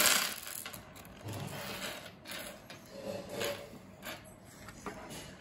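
Screws and washers tipped out of a small plastic bag onto a wooden tabletop, clattering in a short burst at the start, then scattered light clicks as they are spread and picked through by hand.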